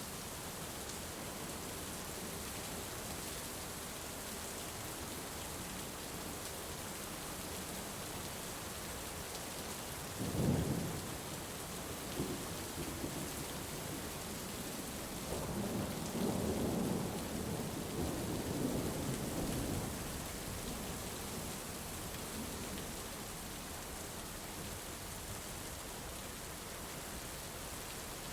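Steady rain falling, with thunder. There is a sudden clap about ten seconds in, then a longer rolling rumble a few seconds later.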